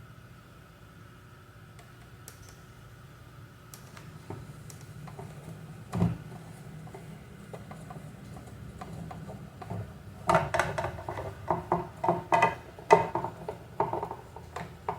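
Clatter of tools and fan parts being handled on a workbench: a single knock about six seconds in, then a quick run of clicks and clinks from about ten seconds, over a faint steady hum.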